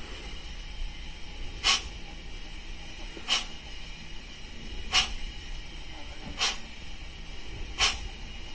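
Model steam locomotive's DCC sound decoder playing short steam hisses through its small speaker, regular, about one every second and a half, with the locomotive standing still.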